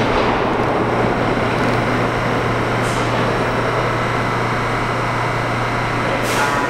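R68 subway train pulling out and receding into the tunnel: a steady rumble of wheels on rail over a low hum, slowly easing, with a brief hiss near the end.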